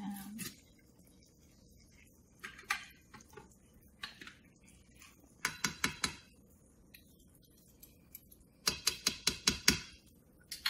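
Metal fork and small kitchen utensils clinking. There are scattered clicks, then a quick run of about six taps a second near the end.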